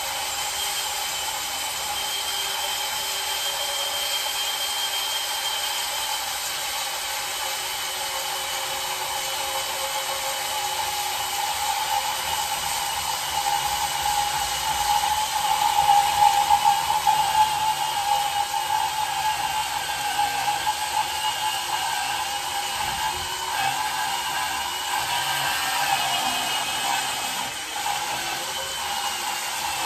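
Cordless power saw running steadily under load as it cuts through a 2-inch steam main pipe, its motor whine getting louder about halfway through.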